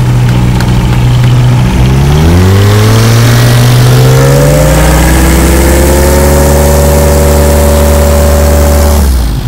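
World War I replica biplane's engine and propeller running loud: the engine revs up from idle about two seconds in, climbs to a steady high-power run-up, then is throttled back just before the end.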